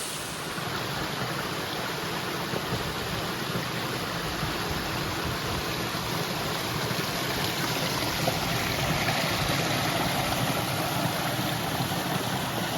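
Small woodland waterfall on a brook: water rushing and splashing steadily, growing a little louder a little over halfway through.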